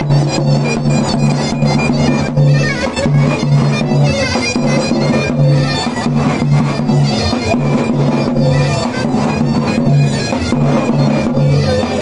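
Davul and zurna playing a horon dance tune: the zurna's reedy melody held over the davul's steady, evenly repeating beats.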